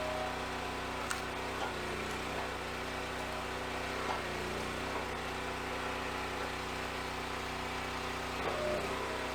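Engine of a log splitter running steadily, with a few light knocks from the wood or the machine about one and four seconds in. A higher steady whine rises in near the end.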